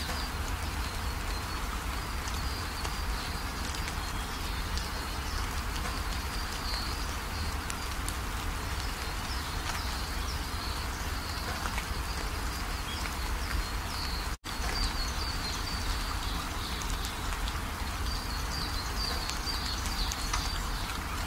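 Steady background hiss over a low hum, with faint high chirping running through it. The sound drops out completely for an instant about two-thirds of the way through.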